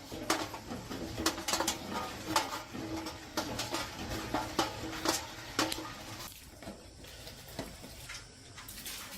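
Irregular metallic clinks and knocks, as of hand tools and small metal parts being handled, thickest in the first six seconds and thinning toward the end.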